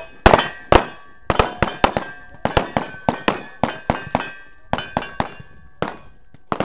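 A rapid, uneven string of gunshots, roughly three to four a second, with steel targets ringing as they are hit. The pace is faster than the half-second cadence being coached: "way too fast."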